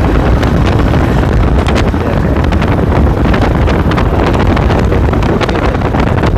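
Wind buffeting the inline microphone of Marshall Mode wired earphones: a loud, steady low rumble with scattered crackles.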